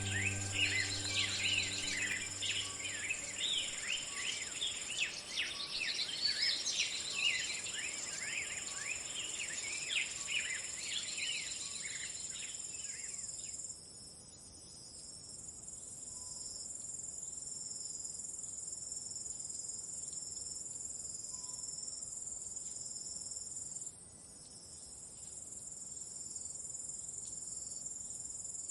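Summer insects in the grass chirring in a high, steady, unbroken buzz. Birds chirp busily over it for the first half, and their chirping cuts off suddenly about halfway through, leaving the insects alone.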